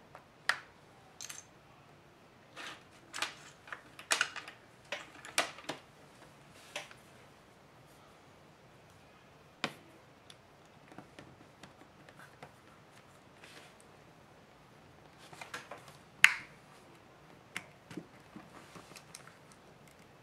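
Plastic back cover of a Samsung Galaxy Tab 3 tablet being pried open by hand and with a thin tool: irregular sharp plastic clicks and snaps as the case clips give, with a louder snap about sixteen seconds in.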